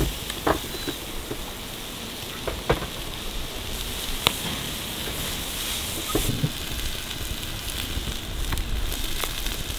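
Scotch fillet steaks sizzling on a grill grate over a wood fire, a steady hiss broken by a few sharp clicks of metal tongs and crackles from the fire.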